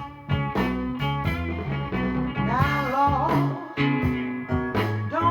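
Gospel song playing on a recording: plucked guitar over a repeating bass line, with a gliding melodic phrase about halfway through.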